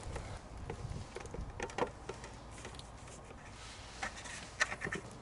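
A few scattered light clicks and knocks from handling the plastic roof flashing and asphalt shingles around a vent pipe, the sharpest about two seconds in and a small cluster near the end, over a low steady rumble.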